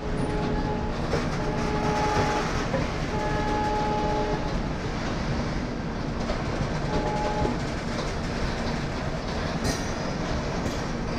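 Indian Railways passenger train running with a steady rumble of wheels on track. A train horn sounds in four short blasts over the first eight seconds, the third the longest.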